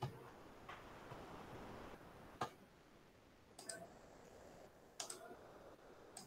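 Faint, scattered computer mouse clicks, about six over a few seconds, over low room noise.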